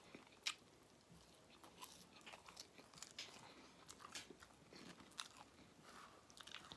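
Chewing and biting into crispy battered fried fish close to the microphone: a scattered run of short crunches and mouth clicks, the loudest about half a second in.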